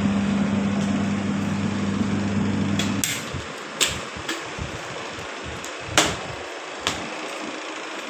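Realme TechLife 7.0 kg semi-automatic washing machine's motor humming steadily, then cutting out suddenly about three seconds in, as the faulty spin timer returns to off. A few sharp clicks follow.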